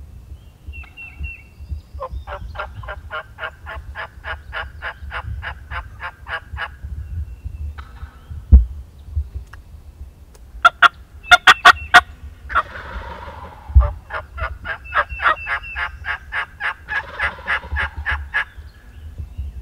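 Turkey yelping: two long runs of evenly spaced yelps, about four a second. Between them come a few sharp clicks and a short rattling burst, plus a couple of low thumps.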